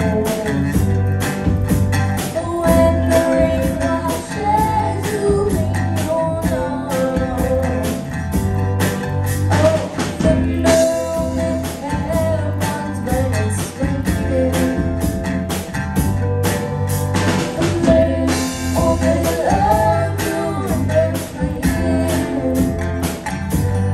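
Live rock band playing: electric guitars, bass guitar and a drum kit keeping a steady beat, with a female lead vocal over the top.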